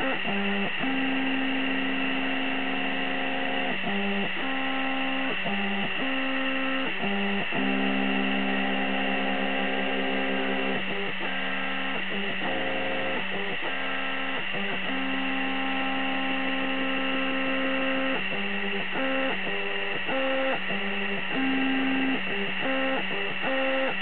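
Stepper motors of a small laser engraver whining as the head moves: pitched tones that start, stop and change pitch every second or so, over a steady hum.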